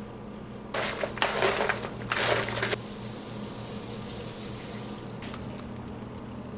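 Dry rattling rustle of seasoning being shaken from a small container over a bowl of popcorn, in two bursts: one of about a second, then a shorter one. A low appliance hum runs underneath.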